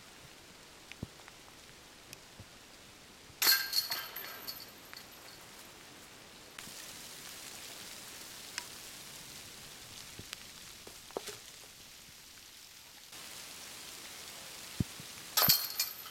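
Two disc golf putts striking the hanging chains of a metal basket, one a few seconds in and one near the end. Each is a sudden jangle of chains that rings briefly and dies away.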